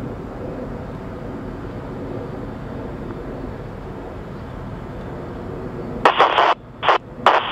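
Norfolk Southern diesel locomotive approaching at a distance, a steady low engine rumble. About six seconds in, a scanner radio breaks in with loud, tinny, choppy bursts of radio transmission.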